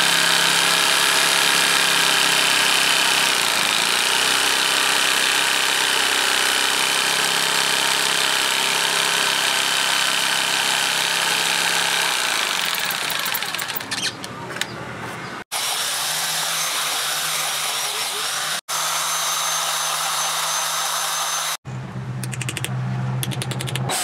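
Electric jigsaw cutting through an old wooden board, a loud steady buzz of the saw motor and blade, for roughly the first half. After a few abrupt breaks, a power drill runs steadily, boring into a wooden knife handle near the end.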